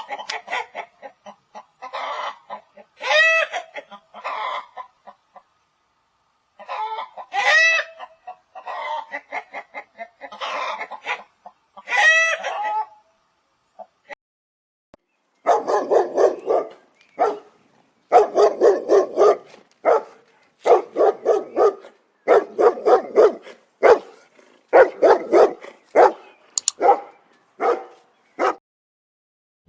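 Domestic chickens clucking in runs of short calls, with a few louder rising-and-falling calls. About halfway through, a faster, denser run of clucks and cackles begins.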